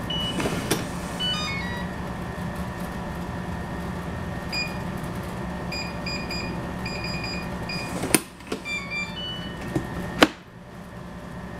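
Metalware MW520 digital door lock beeping: a short falling chime, then a run of quick keypad beeps, another short run of tones, and two sharp loud clacks from the lock mechanism and door.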